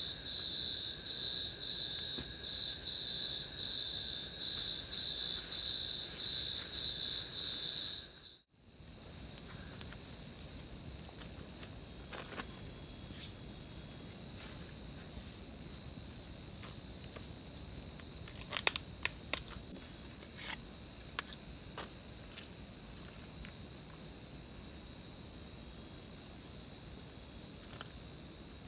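A steady, high-pitched chorus of night insects in tropical forest, cutting off abruptly about eight seconds in and resuming more quietly. Scattered light clicks and taps sound over the quieter insect chorus in the second half.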